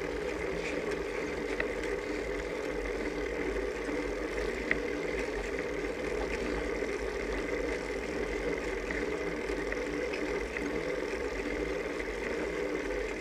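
Steady rolling noise of a bicycle climbing slowly on an asphalt road, heard from the rider's camera, with a few faint clicks.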